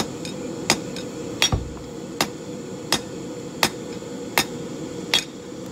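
Hand hammer striking a red-hot half-inch square bar on an anvil at a steady pace, about eight blows, forging a short taper down to a point.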